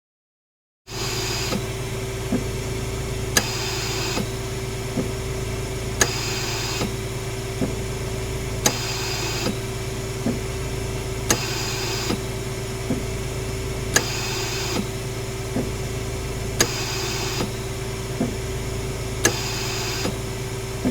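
Hospital mechanical ventilator running: a steady low hum with a constant tone, and a burst of hiss about every two and a half seconds, each marked by a sharp click as it starts and a softer click as it ends, in a regular breathing cycle.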